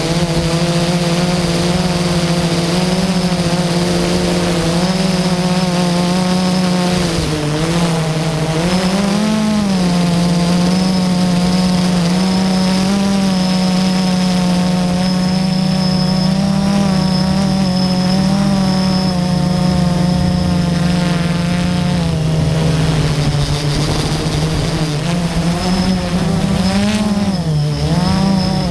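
FPV drone's electric motors and propellers humming steadily, the pitch swelling and dipping briefly with throttle changes about nine seconds in and again near the end.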